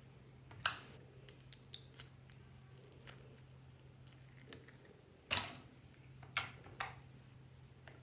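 Slime being handled by hand: a few short, sticky squelches and clicks, the loudest about five and a half and six and a half seconds in, with smaller ticks between, over a steady low hum.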